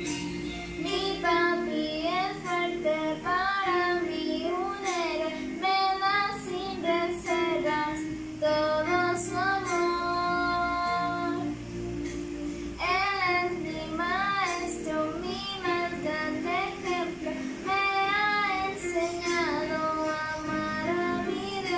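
A young girl singing a song over an instrumental backing, her voice holding and bending long notes.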